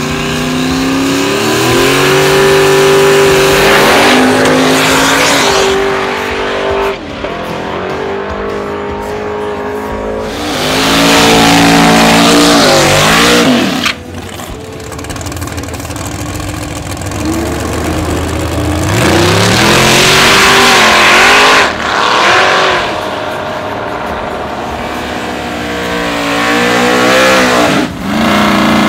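Drag-racing cars' engines revving hard and pulling away one after another, pitch climbing and falling with each run, with loud tire noise from spinning wheels during burnouts. The sound breaks off abruptly and jumps to another car several times.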